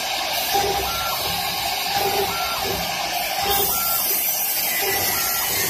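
CNC wood lathe running, its cutter shaving the spinning wooden workpiece: a steady mechanical noise, with a short higher tone repeating about every second and a half.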